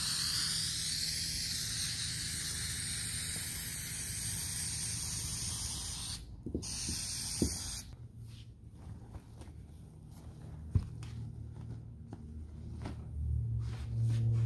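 Aerosol can of spray adhesive hissing in a long spray of about six seconds, a short break, then one more brief spray. Softer rustling of the fabric being handled follows, and music comes in near the end.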